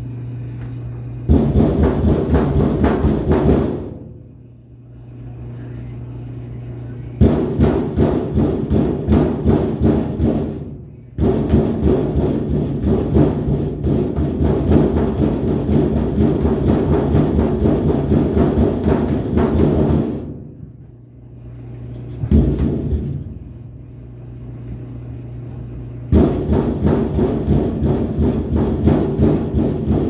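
Small fists rapidly punching the hollow sheet-metal front panel of a top-load washing machine, speed-bag style, in several long runs of quick thumps separated by pauses. A steady low hum fills the pauses.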